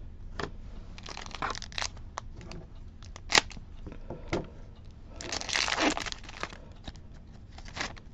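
Foil wrapper of a Pokémon card booster pack crinkling in the hands, then torn open in one longer rip about five seconds in, amid short clicks and rustles of the pack and cards being handled.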